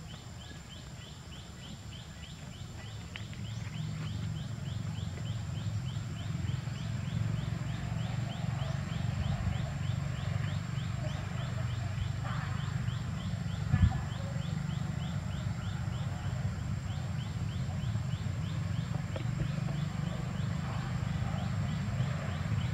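Forest ambience: a rapid, even series of short high chirps, several a second, starts a few seconds in and keeps on over a steady low rumble. A single sharp knock comes about 14 seconds in.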